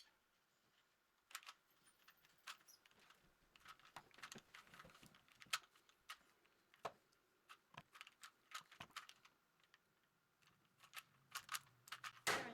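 Plastic Rubik's Cube being turned quickly by hand: faint, irregular clicks and clacks of the layers snapping round, louder near the end.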